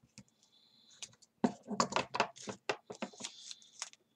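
Wide duct tape being pulled off the roll in a run of sharp crackles, with paper rustling as the strip is laid along a paper grocery bag.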